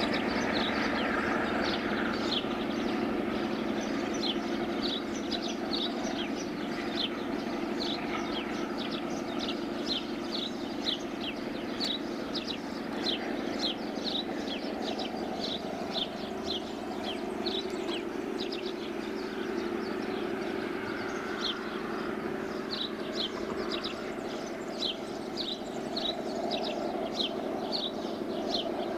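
Distant steady drone of a departing ex-DB class 221 (V200.1) diesel-hydraulic locomotive working on its one serviceable engine, with a bird chirping about twice a second.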